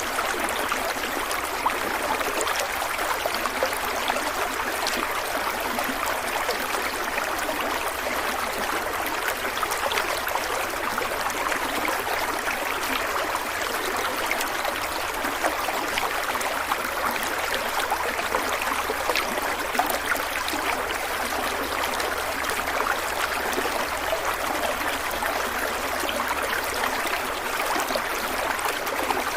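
Stream water flowing steadily over rocks, a continuous rushing and babbling with fine splashes throughout.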